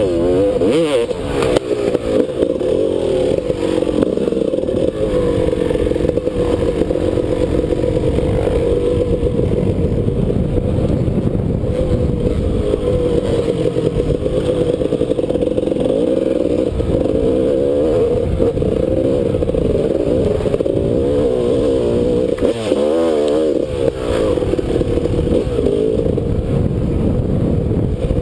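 Dirt bike engine running under load while riding a sandy trail, its revs rising and falling over and over as the throttle is worked, over a steady low rumble.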